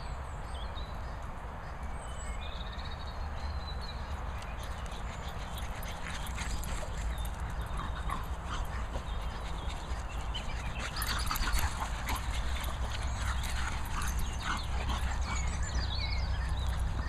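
A Chug and a French Bulldog playing together: whimpers and yips over scuffling paws and short knocks, getting busier about halfway through.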